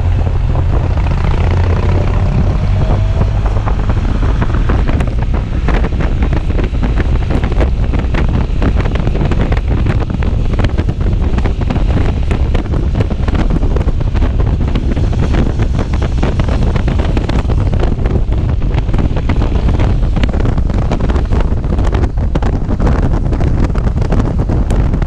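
Loud, steady wind buffeting on the microphone over a low rumble, as from a camera on a moving motorcycle.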